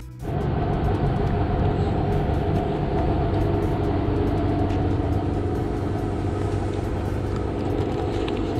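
Steady engine rumble with a constant hum, starting abruptly just after the start and holding even throughout.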